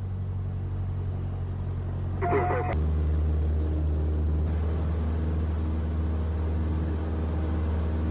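Steady low aircraft engine drone under aviation radio traffic. About two seconds in comes a brief burst of thin, filtered radio voice that ends in a sharp transmission click, after which the drone turns deeper and slightly louder.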